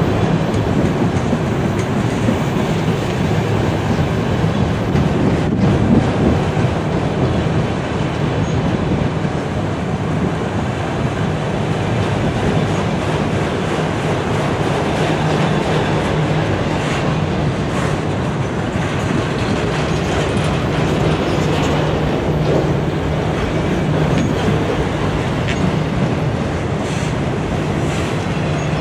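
A long freight train of enclosed autorack cars rolling steadily past on the near track: a loud, even noise of steel wheels on rail, with a few faint clicks here and there.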